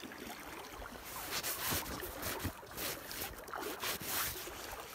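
Rustling and rubbing of clothing against the microphone, irregular from about a second in, over a low wash of river water around the boat.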